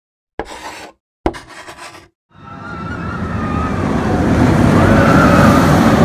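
Intro sound effect of a roller coaster train: two short sharp hits about a second apart, then a rushing rumble that swells as the train passes, with a faint whistle on top.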